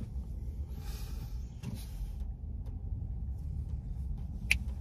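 Steady low hum inside a parked car's cabin, from the idling engine or its ventilation, with a few faint ticks and one sharp click near the end.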